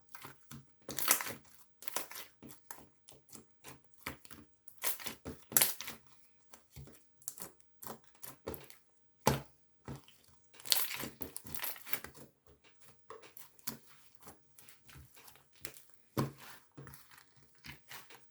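Irregular rustling, crinkling and tapping handling noises close to the microphone, in short bursts with brief quiet gaps between them.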